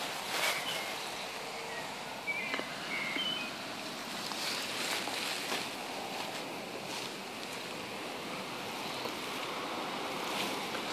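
Steady outdoor breeze hiss, with a few short faint bird chirps about two to three seconds in and a couple of soft clicks near the start.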